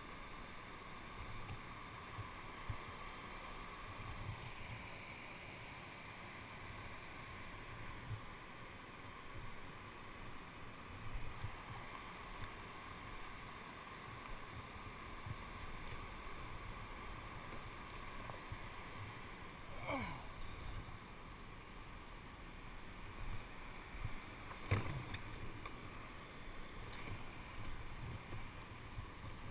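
Creek water rushing steadily over rocks, with a few low thumps and two sharper knocks or scrapes in the second half.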